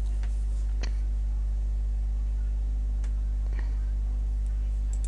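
Steady low electrical mains hum on the recording, with a few faint clicks from a computer mouse: one about a second in and a quick pair about three and a half seconds in, as a file is double-clicked open.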